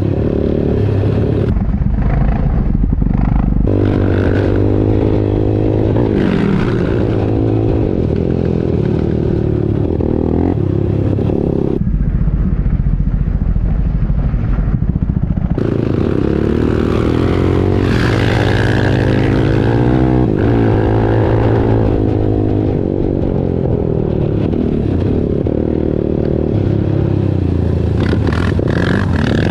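Yamaha YFZ 450R's single-cylinder four-stroke engine being ridden hard, its pitch repeatedly climbing and dropping as the throttle is worked through gears and corners. Twice, for a few seconds, the sound sinks to a low rumble.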